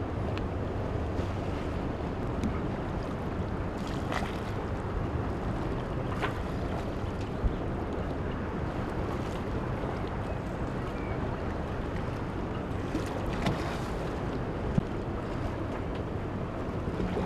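Steady wash of water and wind noise aboard a yacht, with a low motor hum underneath and a few light knocks.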